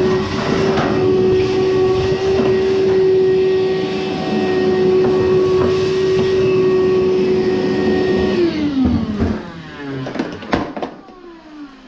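Frigidaire electric clothes dryer running, a steady motor hum over a rough tumbling rumble, then switched off about eight and a half seconds in, its pitch falling as the motor and drum coast down, followed by a few sharp knocks.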